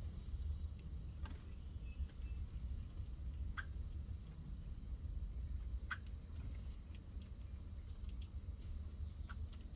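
Outdoor backyard ambience: a steady high-pitched insect drone over a low rumble, with four short, sharp bird chips spaced a few seconds apart.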